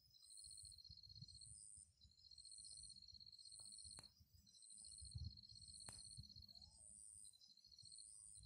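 Faint outdoor insect chorus: a pulsed trill that runs in stretches of one to two seconds with short breaks, and a higher chirp repeating about once a second. Underneath is a low rumbling on the phone's microphone, with a couple of sharp clicks.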